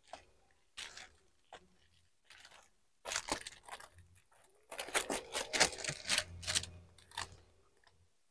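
Scissors snipping through plastic packaging film and tape, with the crinkle and tearing of the wrapper as it is pulled open. A few isolated snips at first, then busier from about three seconds in.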